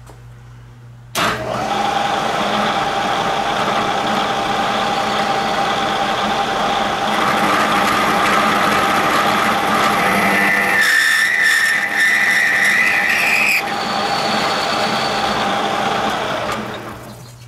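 Bridgeport milling machine running with an end mill taking a cut along a steel chuck-wrench blank, starting suddenly just over a second in and dying away near the end. A slightly rising squeal sounds for a couple of seconds past the middle, the cutter squeaking where the metal is harder.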